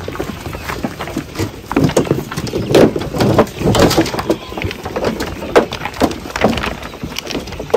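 Several sheep eating grain feed from a metal trough, heard close up: a busy, irregular run of crunching, clicks and knocks from muzzles in the trough, with shuffling hooves.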